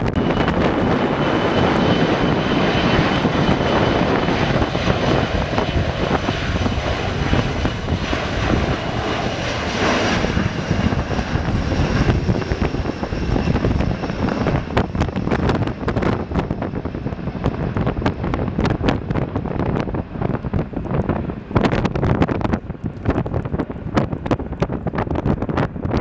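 Boeing 737's twin CFM56 jet engines at takeoff thrust as the airliner rolls past along the runway: a steady jet noise with high whining tones that slowly fall in pitch. From about halfway on, gusts of wind buffet the microphone.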